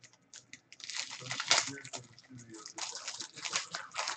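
Foil wrapper of a trading-card pack crinkling and tearing as it is opened by hand, in two stretches of rustling.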